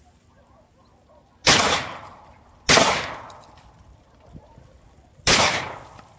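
Three gunshots during a wild boar hunt: two about a second apart, then a third about two and a half seconds later. Each one trails off in an echo lasting about a second.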